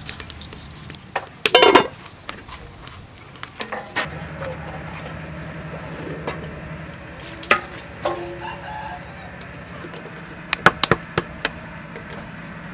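A metal plate of eggs clinks several times against a wooden table in sharp, short knocks. Chickens cluck in the background.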